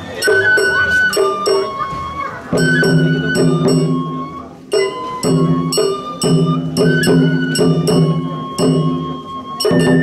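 Japanese festival hayashi music: a bamboo flute holding long high notes over steady strokes of drums and a small metal gong, with lower sustained tones joining about two and a half seconds in.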